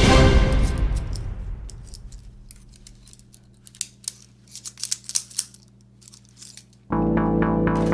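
Background music fading out, then a series of sharp metallic clicks and jingles as a pair of toy handcuffs is handled and its cuffs ratchet. Music with guitar starts again abruptly near the end.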